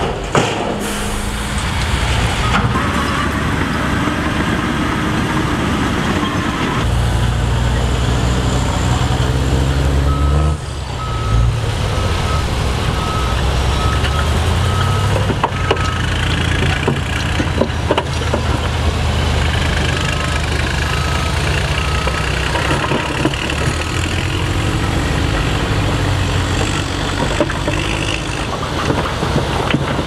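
Dump truck engines running as the tipper beds are raised and rock and dirt slide out, with scattered knocks of stones falling onto the pile. A reversing alarm beeps in several runs of evenly spaced beeps.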